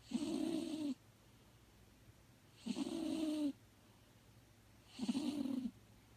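Elderly house cat snoring in her sleep: three snores about every two and a half seconds, each under a second long.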